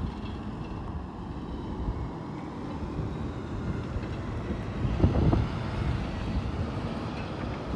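Wind buffeting the microphone: a low rumble that swells in gusts about five seconds in.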